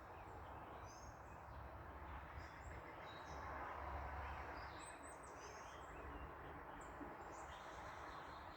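Small birds chirping, many short high calls, over a faint steady wash of distant traffic that swells briefly about four seconds in.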